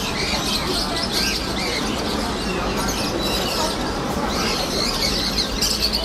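Many birds chirping and twittering at once in a bird market, short scattered calls overlapping over a steady background din.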